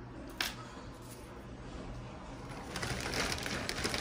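A single small click about half a second in, then from about two and a half seconds in a dense crackling rustle of a small plastic bag being handled.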